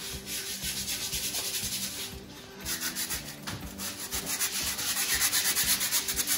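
Hand-sanding the painted aluminium casing of a Mercruiser Alpha One Gen II sterndrive, quick back-and-forth strokes at about five a second, with a brief pause about two seconds in and louder strokes near the end. The drive is being sanded down ahead of priming and painting.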